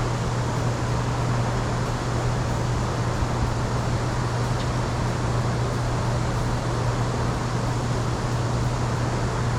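Boat's outboard motor running steadily at low speed: a constant low drone with an even rushing hiss, unchanging throughout.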